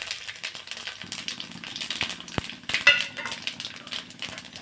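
Whole spices (cinnamon, cloves, star anise, fennel, cumin and cardamom) sizzling in hot oil in a kadai, with a steady crackle and many small sharp pops.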